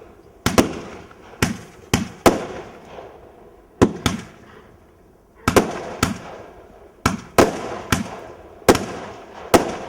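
Fireworks going off in a display: a string of over a dozen sharp bangs, irregularly spaced, each followed by a rolling echo, with a short lull about four to five seconds in.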